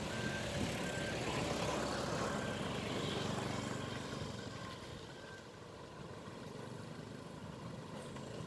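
Road traffic: a dump truck and motorbikes driving away down a rough road, their engines running, the sound fading after about four seconds.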